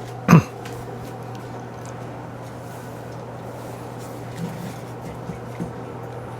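Steady low hum with faint background noise, after one short loud sound just after the start.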